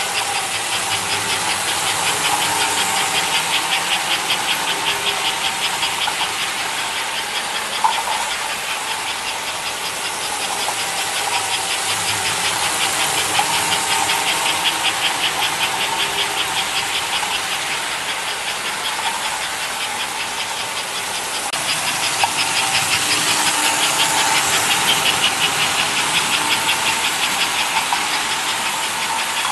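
American Flyer S-gauge toy train, a steam locomotive pulling freight cars, running around an oval track: a steady motor whine over a fast, even clicking of the wheels on the rails. The sound swells three times as the train comes round close by, about every ten seconds.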